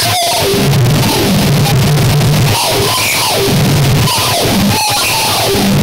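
Harsh noise music: loud, dense distorted noise at every pitch over a low buzz that pulses on and off, with warbling tones sliding downward. The noise cuts out for an instant just after the start and again near the end.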